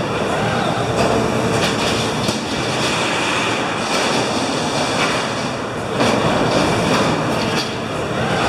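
Robotic copper cathode stripping machine and its handling robot arms running: a steady mechanical clatter and hum with a constant high whine, scattered short clanks, and a few rising-and-falling motor whines.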